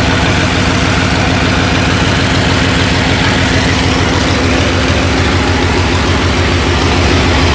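Bulldozer's diesel engine running steadily at idle, a low, even pulsing throb.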